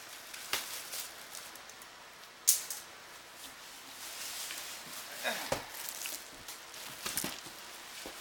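A cardboard shipping box being opened by hand: scattered rustles, scrapes and clicks of cardboard and packing, with one sharp snap about two and a half seconds in.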